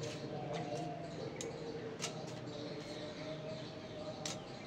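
Sharp snaps and clicks of Malabar spinach (pui shak) stems being broken and stripped by hand, several single snaps a second or two apart, over a low steady background.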